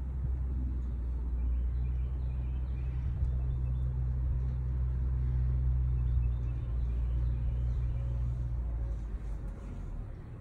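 Low, steady rumble of a motor vehicle engine, which grows stronger a couple of seconds in and drops away near the end.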